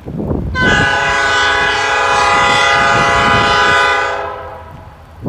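Diesel freight locomotive's air horn sounding one long blast of several notes at once, lasting about three and a half seconds and fading at the end, over a low rumble.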